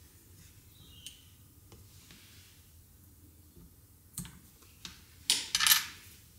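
Quiet handling of small tools on a wooden board: a few light clicks and taps, then a brief louder scratchy clatter about five seconds in as a metal-tipped soap tool and small soap stamps are set down on the board.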